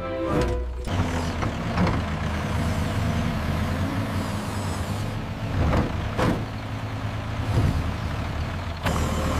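Heavy diesel machine engine, a telehandler, running steadily as it moves in with its forks, with several short hissing bursts like air brake or hydraulic releases.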